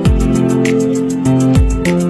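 Background music: held instrumental notes over a beat with deep drum thumps and regular high ticks.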